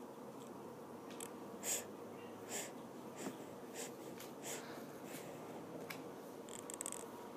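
Drawing strokes on paper: short scratchy strokes coming a little under a second apart, with a quick cluster near the end, over a faint steady room hum.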